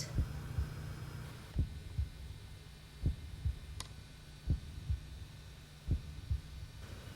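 Slow heartbeat, low thuds coming in close pairs about every second and a half over a steady low hum.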